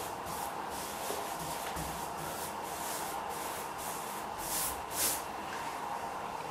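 Paintbrush swishing back and forth over painted woodwork in a run of soft strokes, two of them louder a little past the middle.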